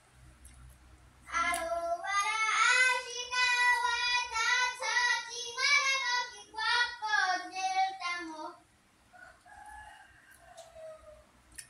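A woman singing a high, wavering tune in a string of short notes, starting about a second in and stopping about two-thirds of the way through.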